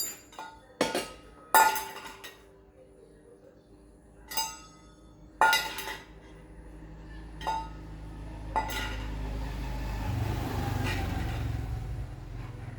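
About seven sharp metallic clinks and knocks with a short ring, spaced irregularly over the first nine seconds. A low rumble builds underneath in the second half and is loudest near the end.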